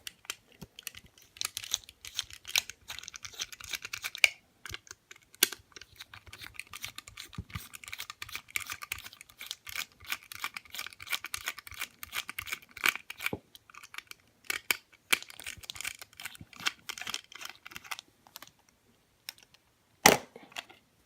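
Plastic blister packaging of a die-cast model car being torn and pried open by hand: a long run of crinkling, crackling and small clicks, with one sharp crack near the end.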